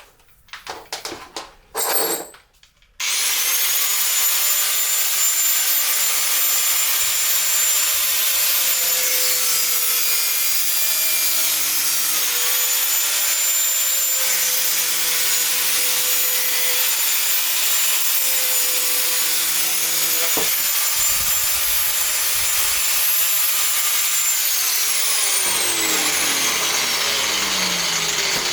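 A few knocks, then an angle grinder starts about three seconds in and runs steadily with a high whine as its disc cuts through 3D-printed plastic. Near the end the whine drops in pitch.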